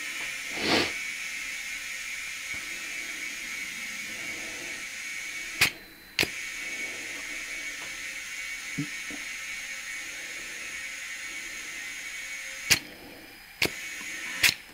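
Compressed air hissing steadily into a tyre through a handheld digital tyre inflator on an air hose. It stops with a click and restarts about six seconds in, and is interrupted by a few more clicks near the end.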